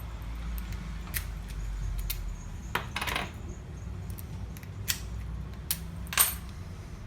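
Small metal clicks and clinks of aluminum storefront mortise lock cylinders and their parts being handled and worked on, with a short scrape about three seconds in and a sharper clink near the end.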